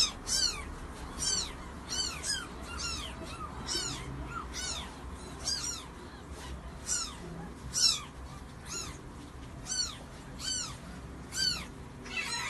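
Kitten mewing over and over: short, high, insistent mews, each rising then falling in pitch, about one to two a second.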